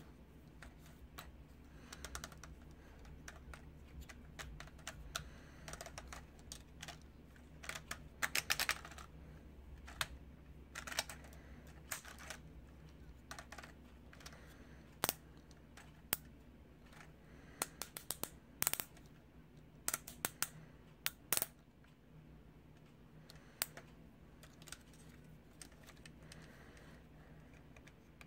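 Hard plastic clicks and snaps from a Playmates Legendary Black Lion toy figure as its limbs and parts are moved by hand. The clicks come irregularly, in clusters with pauses between, over a faint low hum.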